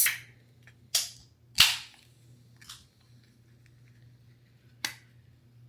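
A series of sharp knocks: one right at the start, another about a second in, the loudest about a second and a half in, a weaker one a little later, and a last one near the end.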